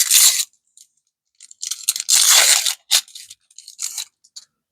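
Plastic card packaging crinkling and rustling as it is handled and opened: a short burst, a longer crinkle about two seconds in, then a few light clicks.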